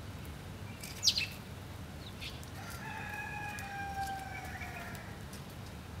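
Sparrows give a sharp, falling chirp about a second in and a short chirp a second later. From nearly three seconds in, a rooster crows once: a long call held for over two seconds, sliding slightly lower.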